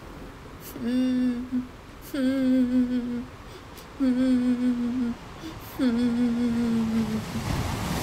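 A woman's voice acting out sobbing: four drawn-out 'huu' wails, each about a second long, each dipping briefly at its start and then held on one pitch.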